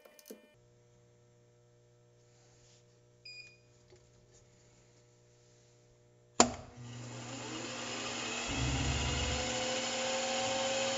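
Faint steady hum with a few small clicks, then about six seconds in a sharp click and a small milling machine's spindle motor starts up, its whine slowly rising in pitch as it comes up to speed, with a short low rumble about two seconds later.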